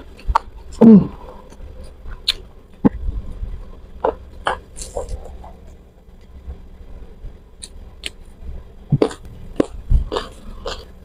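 Close-up mouth eating sounds: irregular crunches, clicks and smacks of chewing raw takokak (pea eggplant) and fried chicken, with a short low throat sound, the loudest moment, about a second in.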